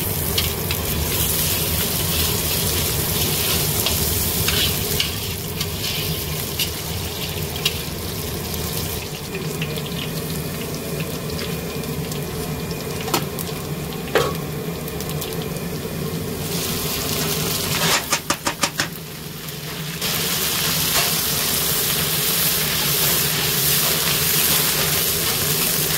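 Cauliflower sizzling in hot oil in a large iron kadai, with a steady frying hiss and a metal spatula scraping and clicking against the pan. About two-thirds of the way in there is a quick run of half a dozen knocks.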